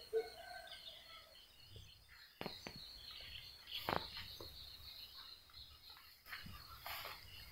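Faint outdoor ambience: a steady high insect chirring with scattered bird chirps, broken by a few sharp clicks or knocks, the loudest about four seconds in.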